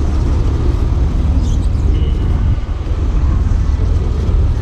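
Diesel truck engines running at low speed as a box truck rolls slowly past: a steady low rumble. A short faint high squeal sounds about two seconds in.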